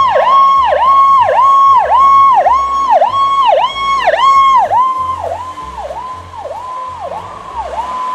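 A toy ambulance's electronic siren: a high tone that dips sharply in pitch and springs back about twice a second. It gets quieter about five seconds in.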